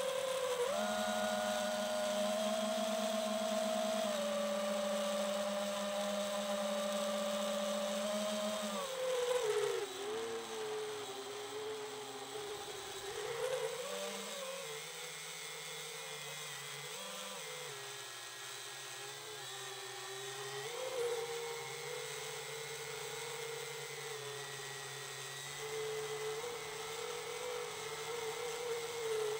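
FPV quadcopter's brushless motors whining, picked up by its own onboard camera. The pitch holds fairly steady for the first nine seconds, then drops and rises and falls with throttle for the rest.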